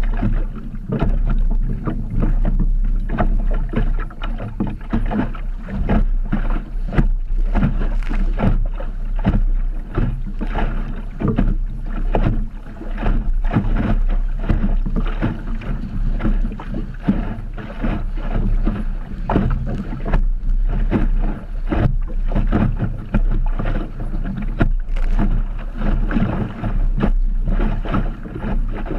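Fibreglass Optimist dinghy hull pounding through choppy water: waves slap and splash against the hull in quick, irregular knocks over a steady low rumble of wind.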